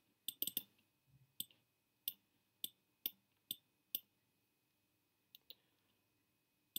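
Computer mouse clicks: a quick cluster near the start, then single clicks about every half second for a few seconds, and two faint ones near the end.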